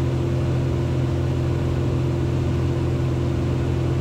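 Cessna 182 Skylane's piston engine and propeller running steadily in flight, an even drone with a fixed pitch.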